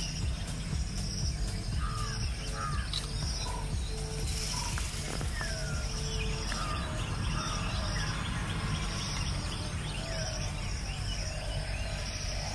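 Several birds calling with short chirps and sweeping notes over a steady low rumble, with a faint regular high-pitched pulse running under it and a brief hiss about four seconds in.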